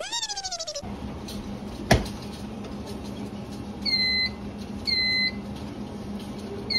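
Hotel breakfast flip-style waffle maker beeping: short two-tone electronic beeps about a second apart, starting about four seconds in. A short falling whistle-like sound effect opens, and a single knock comes about two seconds in.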